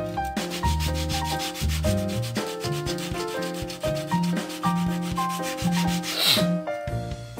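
Sandpaper on a block rasping back and forth over a carved wooden lure blank in rapid, even strokes, several a second, squaring its sides; the strokes stop near the end.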